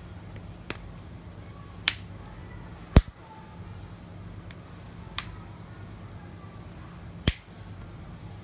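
Five sharp, separate clicks, the loudest about three seconds in, over a steady low hum.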